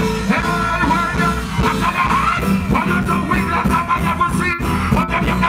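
Live reggae band music playing loudly through a concert sound system, with a vocalist's voice over the band on the microphone.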